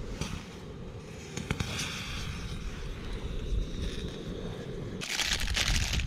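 A camping gas canister stove running under a pot of cooking pasta. About five seconds in, a plastic food pouch crinkles loudly for about a second.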